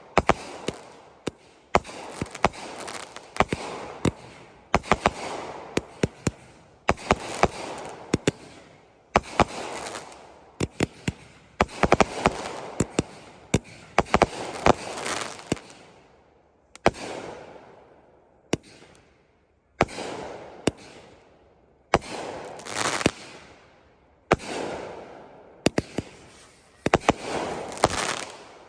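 A board of 200-gram consumer firework cakes going off: clusters of sharp bangs from shots and aerial breaks, each group trailing off in a fading hiss, with a brief lull a little past halfway.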